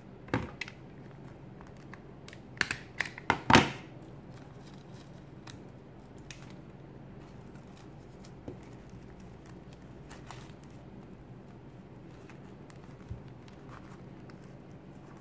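Stiff, stapled pleated fabric strip crinkling and rustling as it is handled, with a few short sharp crackles about half a second in and a quick cluster around three seconds in, then only light scattered rustles over a faint steady hum.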